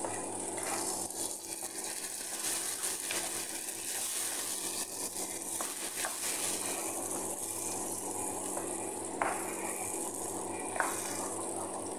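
Blended tomato sizzling in a frying pan of sautéed garlic and onion, stirred with a wooden spatula that scrapes the pan, with a couple of light knocks near the end.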